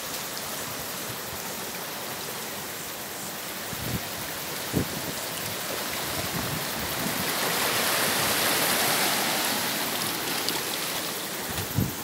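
Small waves washing and fizzing among shoreline rocks, the wash swelling louder past the middle. A couple of brief low thumps stand out, one about a third of the way in and one near the end.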